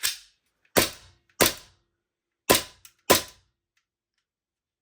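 Armourer Works G18C airsoft pistol's action being cycled by hand: four sharp clacks in two quick pairs. The trigger reset is being tested, and the trigger is still not resetting properly.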